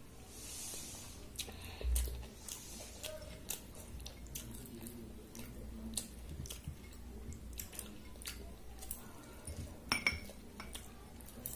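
Panta bhaat, rice soaked in water, being mixed and scooped by hand in a bowl: wet squishing of the rice, chewing, and scattered light clinks of fingers and bangles on the bowls. The sharpest clinks come about ten seconds in, as a hand dips into a small glass bowl.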